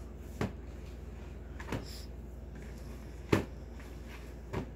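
Four dull knocks, about one every second and a half, as homemade playdough is kneaded by hand in a plastic bowl that bumps on a wooden table, over a steady low hum.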